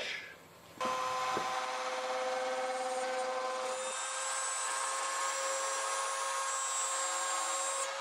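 CNC router spindle running steadily with a whine, its bit milling into thin aluminum sheet. It starts about a second in, and a higher whine joins about halfway through.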